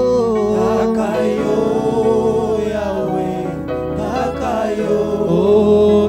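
A man singing a French gospel worship song over instrumental backing music.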